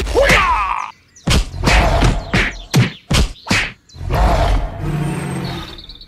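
A quick run of about seven sharp whacks, packed into a couple of seconds.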